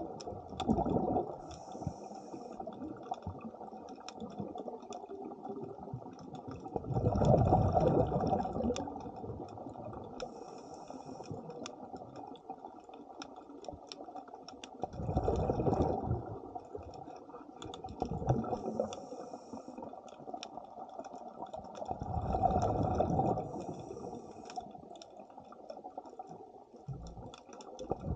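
Scuba diver's breathing heard underwater: a rush of exhaled bubbles from the regulator about every seven seconds, with a short high hiss of inhalation between them and scattered faint clicks.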